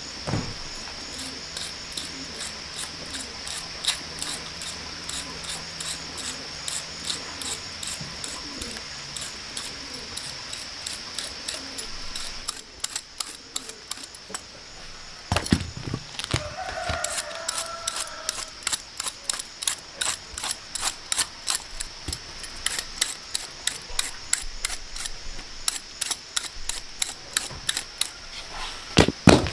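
Rapid, regular clicking strokes, a few a second, growing denser from about halfway through, over a steady high insect drone.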